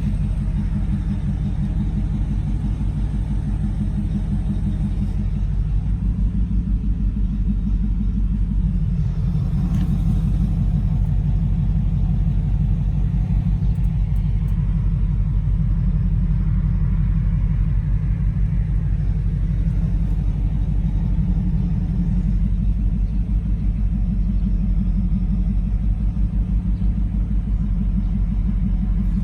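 2002 Ford Lightning's supercharged 5.4-litre V8 idling steadily through long-tube headers and a Bassani cat-back exhaust. It is a low, even exhaust note with a fast regular pulse.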